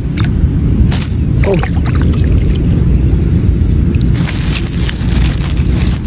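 Wind buffeting the microphone in a steady low rumble, with rustles and wet squelching steps through flooded grass and mud. A few sharp rustles or clicks come about a second in and again after four seconds.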